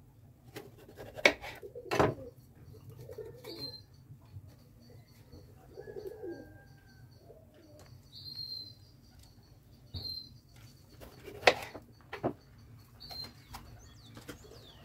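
A kitchen knife knocking sharply on a plastic cutting board as bell peppers are cut: two strikes a second or so in and two more near the end. Birds chirp in the background.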